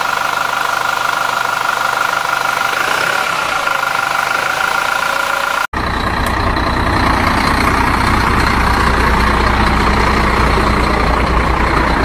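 Steady engine idle with a held mid-pitched hum. About six seconds in it cuts off abruptly and is replaced by a deeper, slightly louder running truck-engine sound as the 6x6 RC Ural truck drives off.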